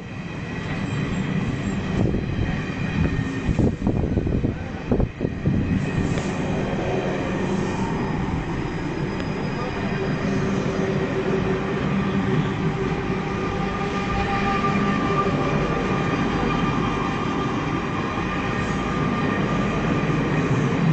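Passenger coaches of the Howrah Duronto Express rolling past along a station platform, a steady rumble of wheels on rail. Sharp knocks come in the first few seconds, and a thin whine rises over the rumble later on.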